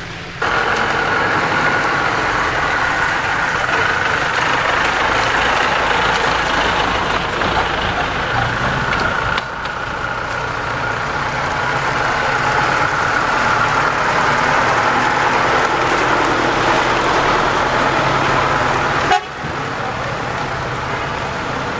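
Off-road vehicle engine running steadily, with a high whine over it. The sound breaks off and resumes about halfway through, then drops to a quieter level near the end.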